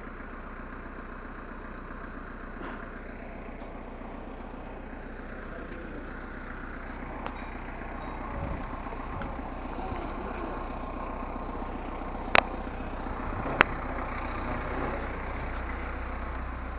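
An engine running steadily, with two sharp clicks a little over a second apart near the end.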